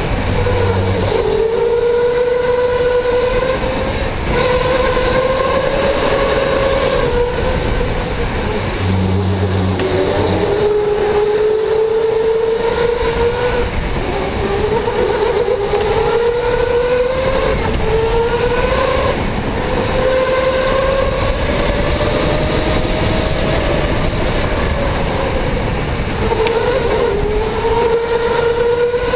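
Electric go-kart motor whining at speed, its pitch climbing along each straight and dropping back as the kart slows into the corners, over a steady rushing noise. A short low buzz sounds twice, near the start and about nine seconds in.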